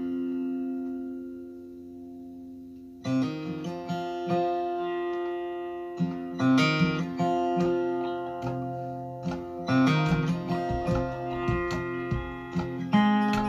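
Acoustic guitar music played back over a hi-fi system: a chord rings and slowly fades, then picked notes and strummed chords come in about three seconds in, with deep low notes joining later.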